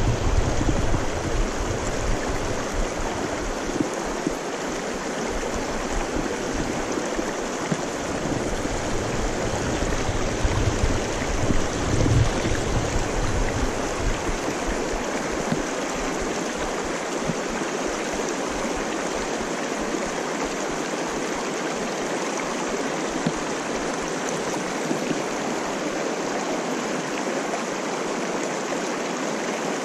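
Shallow mountain river rushing steadily over a rocky riffle. Wind buffets the microphone with a low rumble through roughly the first half, then dies down.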